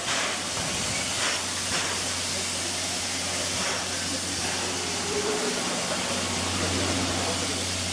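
C11-class steam locomotive C11 207 standing at the platform, hissing steam steadily, with a few brief louder surges of hiss and a low steady hum underneath.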